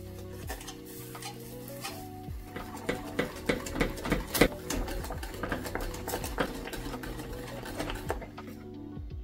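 Wire whisk beating custard in a stainless steel pot, its wires clicking and scraping against the metal in quick, irregular strokes as the custard thickens over high heat. The clicking picks up a couple of seconds in and eases off near the end, over background music.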